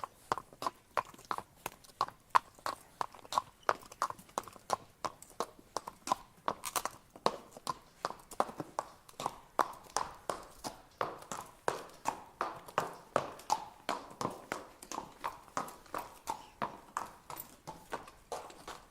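Horse walking, its hooves clip-clopping on the ground in a steady, even rhythm of about three strikes a second.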